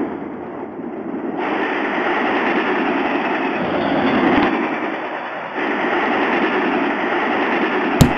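Train running noise, a steady rushing rattle that grows louder about a second and a half in, with a sharp click near the end.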